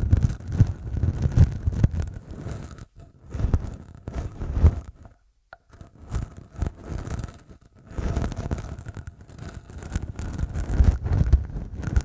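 Short beard stubble rubbed directly against a microphone's capsules, a rough scratching scrape in irregular strokes with a heavy low rumble of contact on the mic. The strokes stop briefly a few times, with a near-silent gap about halfway through.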